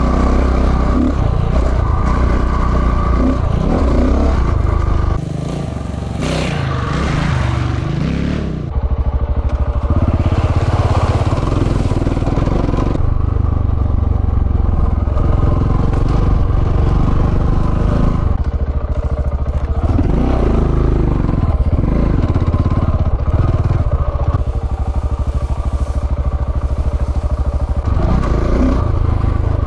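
KTM 690 single-cylinder enduro motorcycle engine running at low revs, its pitch rising and falling with the throttle as the bike picks through rough scrub, with scraping and clattering over it. It drops quieter for a few seconds about five seconds in, then picks up again.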